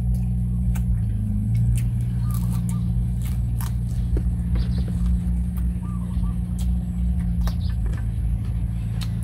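Eating sounds of crispy rice pancake wrapped in fresh leaves, with many short sharp clicks and crunches from chewing and handling leaves. A steady low hum runs underneath.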